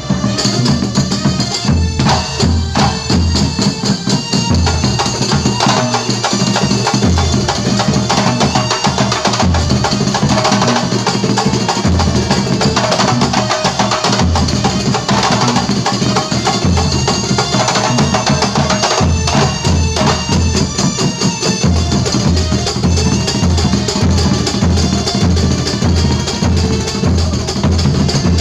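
Banyuwangi kuntulan ensemble playing live: frame drums (terbang) beating out a dense, driving rhythm over regular deep bass-drum thumps.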